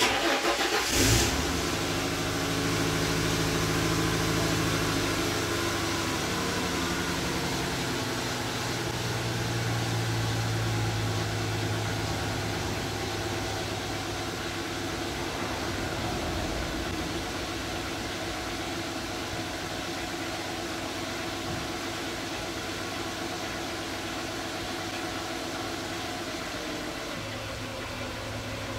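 A 1996 Ford Mustang's engine starting, catching about a second in, and running at a fast idle that drops to a steadier lower idle about seven or eight seconds in. The engine is blowing antifreeze, which the owner takes for a bad motor needing a head gasket.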